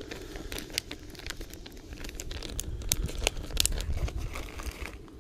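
Crinkling and crackling of plastic fishing-bait packaging being handled as a different colour of crappie bait is picked out, with many sharp crackles that stop shortly before the end.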